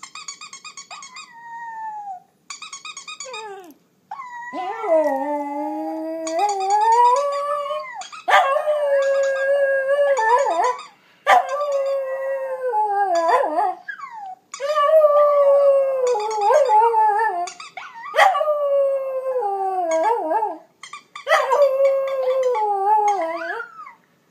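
West Highland white terrier howling along with a chihuahua howling from a laptop's speakers. The first few seconds hold high, fast-pulsing calls; then come about six long, wavering howls that glide up and down in pitch, with short breaks between them.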